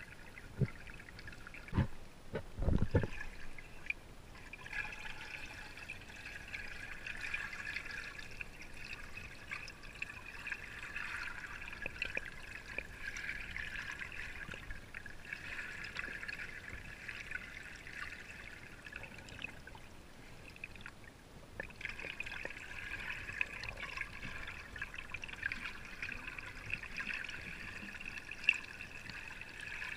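Underwater water noise picked up by a submerged camera in a spring, a steady hiss that dips briefly twice. A few sharp knocks in the first three seconds, the loudest about three seconds in.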